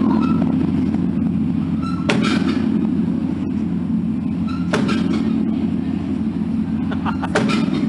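Large temple bell struck three times, about every two and a half seconds, its deep hum ringing on steadily between strikes.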